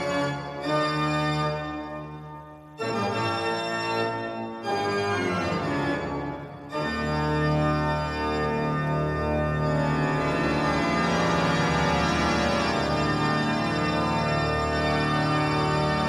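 Pipe organ playing chords in short phrases with brief breaks between them. About seven seconds in it swells into a louder, sustained chordal passage with a deep bass.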